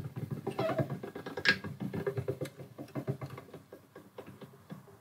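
Hand-cranked slip roll rolling sheet metal into a conical exhaust section: a steady, fast run of gear and metal clicks as the crank is turned. The cone's steep taper takes extra force and hand guidance to roll.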